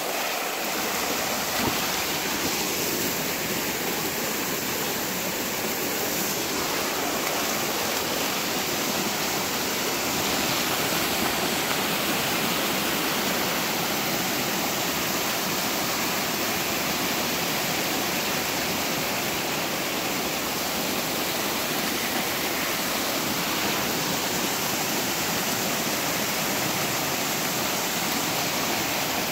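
River water rushing steadily, a continuous even noise.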